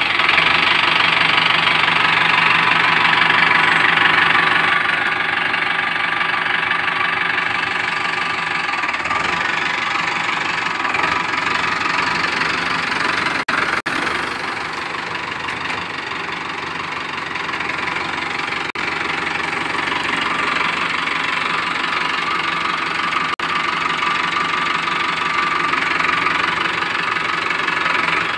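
Mahindra Arjun Novo 605 DI-i tractor's diesel engine running steadily just after starting, a little louder for the first few seconds.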